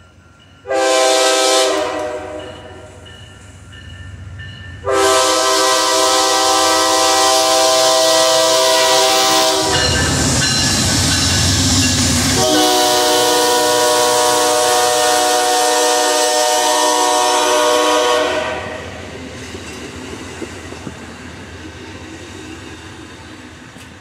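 Amtrak P42DC diesel locomotive's multi-chime air horn sounding a short blast, then a long blast of about four seconds, a break while the locomotive rumbles past close by, then another long blast of about six seconds. After that the horn stops and the passenger cars roll past more quietly.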